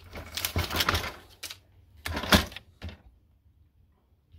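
Sheet-metal chassis of a flat-screen monitor being handled: a rattling clatter for about a second and a half, then a sharp knock a little past two seconds and a smaller knock just after.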